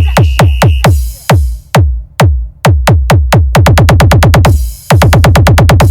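Electronic DJ remix music with a drum machine: heavy kick drums whose pitch drops steeply on each hit, about three a second, breaking off briefly about two seconds in and then speeding into fast rolls.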